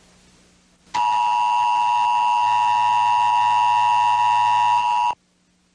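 Emergency Broadcast System attention signal from a television: a loud, steady two-tone beep that starts about a second in, holds for about four seconds and cuts off abruptly.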